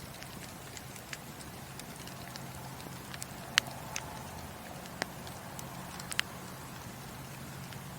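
Burning wood in a fireplace crackling, with a steady low hiss of flame and irregular sharp pops, the loudest about three and a half seconds in and again near six seconds.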